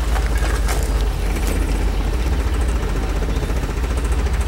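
Safari vehicle's engine running at idle: a steady, low-pitched drone that holds level throughout, with a few faint brief ticks above it.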